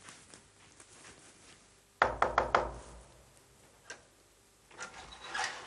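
Knuckles knocking on a door: a quick run of several knocks about two seconds in.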